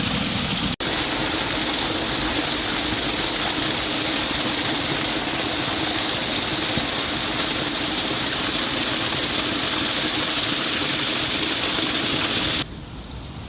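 Waterfall, with a loud, steady rush of falling water. There is a brief dropout about a second in. Near the end the sound cuts suddenly to quieter wind and surf.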